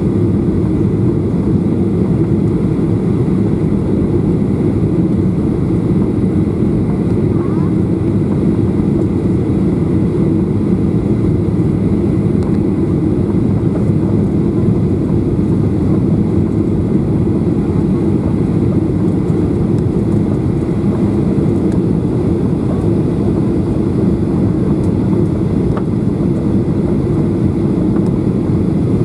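Steady low rumble of engines and airflow inside the cabin of a Boeing 737-800 on final approach, before touchdown.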